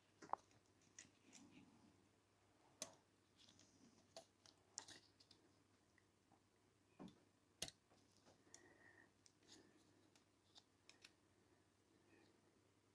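Near silence broken by a handful of faint, scattered clicks and taps: the brass plates and wheels of an antique Ansonia clock movement being handled and fitted together by hand.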